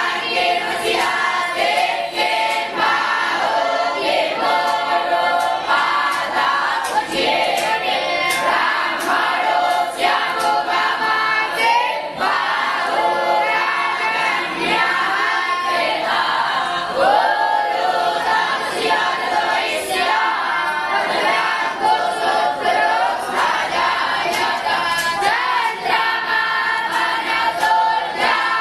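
A group of voices chanting together in unison, a continuous sung recitation with no break, as young Brahmin students (batuks) recite before a meal.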